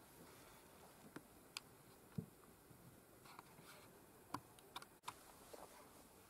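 Near silence at night, broken by a handful of faint, sharp clicks and ticks at uneven intervals.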